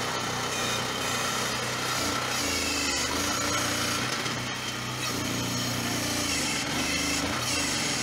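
Small engine of a homemade hydraulic backhoe running steadily while the arm lifts a heavy log; its note wavers in the second half as the load changes.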